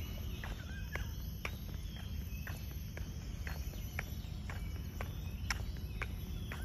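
Footsteps at a steady walking pace, about two a second, over a low rumble, with a steady high-pitched insect buzz behind them.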